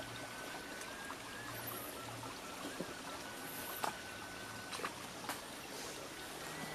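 Shallow forest stream trickling over rocks and mud, a soft steady rush, with a few light clicks and snaps near the middle.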